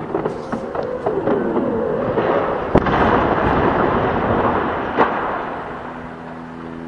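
Felled factory chimney crashing to the ground after demolition blasting: a long noisy crash as the stack hits and breaks up, with a sharp crack about three seconds in and another about five seconds in, dying away near the end.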